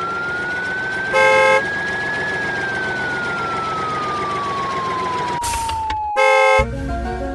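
A siren-like wail: a single tone rising slowly, then falling slowly, over a steady hiss. It is broken by a short, loud beep about a second in and another near the end.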